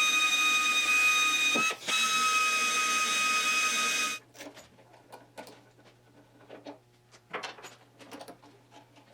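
Electric drill running with a steady high whine, drilling locating holes at a car door hinge. It cuts out briefly a little under two seconds in, runs again, then stops about four seconds in, followed by faint clicks and taps.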